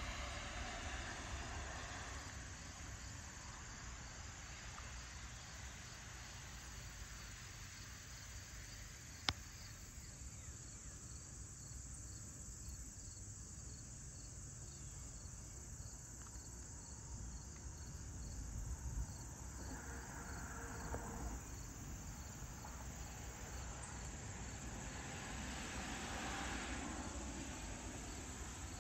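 Insects chirping in a steady, even pulse, with traffic on a road passing and fading away a few times, swelling near the start, about two-thirds of the way in and near the end. A single sharp click comes about nine seconds in.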